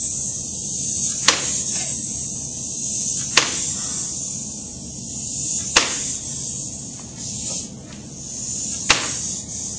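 A small wind-up jumping monkey toy clacking onto a tabletop four times as it jumps, each landing a sharp click, the jumps coming farther apart as its spring runs down, over a steady high whir that stops near the end.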